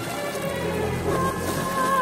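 Background music with a held, wavering high note entering about a second in, over a spatter of splashing water, strongest in the first second.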